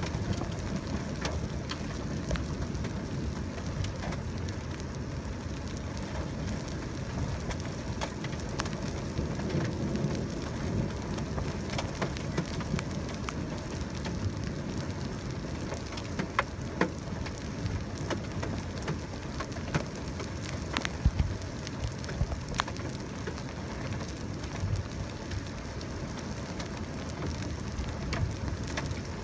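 Steady rain falling, with many scattered louder drops ticking on a hard surface.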